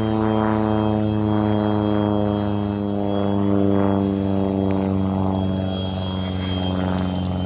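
Phase 3 F-16 RC model jet flying overhead: a steady drone with a thin high whine above it, the pitch easing down slightly as it goes.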